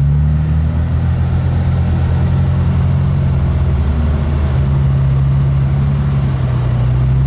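Off-road vehicle's engine running at low, steady revs as it crawls up steep slickrock, a low drone heard from inside the cabin, its pitch shifting slightly about halfway through.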